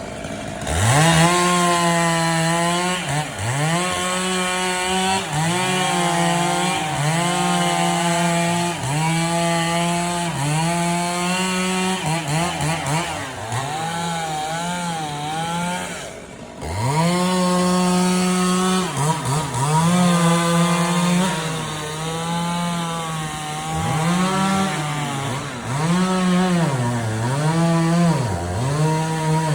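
Two-stroke chainsaw running at high revs, its pitch climbing quickly to a steady high whine and falling back again every second or two as the throttle is worked, with a brief drop-off about halfway. This is the sound of a chainsaw cutting up a tree brought down by the storm.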